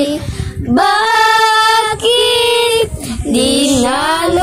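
A young girl singing a slow Tagalog ballad, holding long notes with short breaths between phrases.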